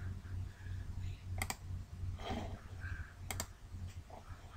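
Computer mouse button clicked twice, each click a quick press-and-release double tick, about a second and a half in and again near three and a half seconds in, over a steady low hum.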